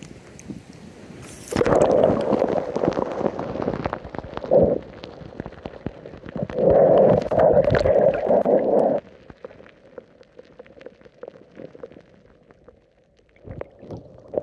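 Water gurgling and sloshing around a camera held at the surface of a rock pool and dipped under it, in two loud stretches separated by a short pause, then much quieter and muffled near the end.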